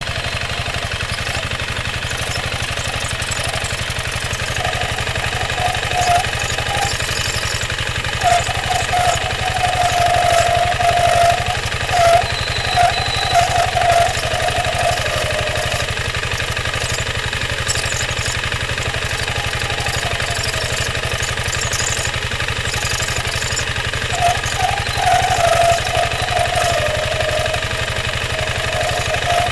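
Piaggio MP3 500 scooter's single-cylinder engine running, with an uneven, wavering noise from the CVT transmission that swells in from about eight to fourteen seconds in and again near the end. The uploader traced the noise to worn-flat roller weights in the aftermarket J.Costa variator.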